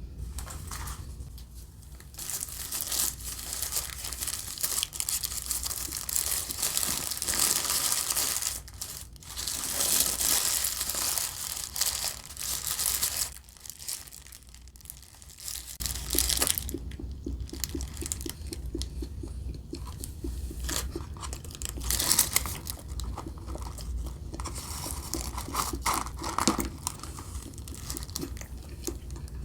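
Paper fast-food wrapping crinkled and torn open close to the microphone, with a short lull about halfway through.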